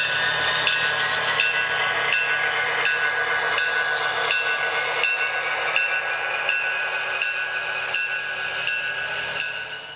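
HO scale model freight train, a diesel locomotive hauling boxcars, rolling past: a steady running hiss and hum with a faint tone slowly rising in pitch, and a regular sharp click about every 0.7 s. It drops away near the end.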